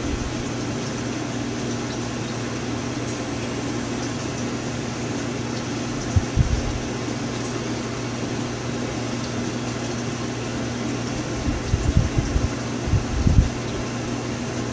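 Steady machine hum with a constant low drone and a faint high whine. A few dull low thumps come about six seconds in and again several times near the end.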